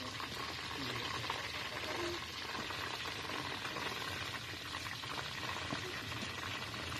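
Hot oil sizzling steadily around a whole chicken deep-frying in a large wok, with faint scattered crackles.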